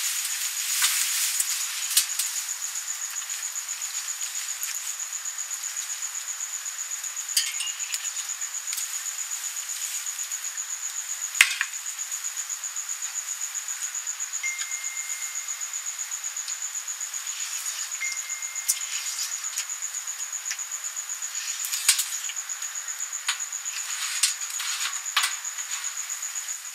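A steady high-pitched trill, rapidly and evenly pulsing, insect-like, with scattered light clicks and taps and two short thin tones about midway.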